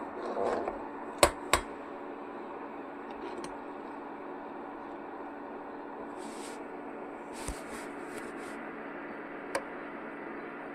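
Steel ladle clinking twice against a steel pot of simmering milk and vermicelli, then a few softer stirring and scraping noises and a last light clink near the end, over a steady low hum.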